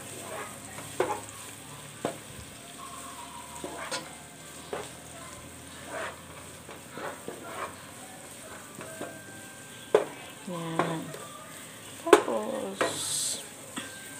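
Garlic and sliced red onions sizzling in oil in a nonstick pot while a wooden spoon stirs them, knocking and scraping against the pot every second or two.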